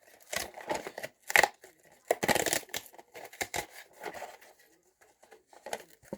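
Toy packaging being torn open and crushed by hand, in a series of irregular crackling, crinkling bursts with short pauses between them.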